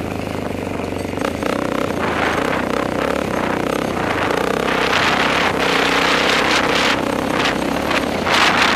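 Yamaha Raptor 660 ATV's single-cylinder four-stroke engine running steadily under throttle while riding at speed, with wind rushing over a helmet-mounted microphone in gusts, strongest about halfway through and near the end.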